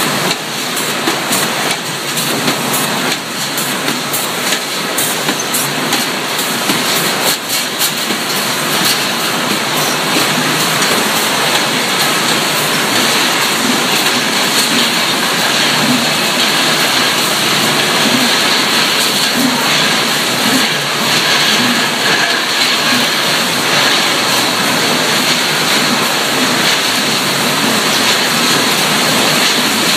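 Tinplate can production line running: a steady, loud mechanical din from the conveyors, with rapid clattering of metal cans knocking together through roughly the first ten seconds.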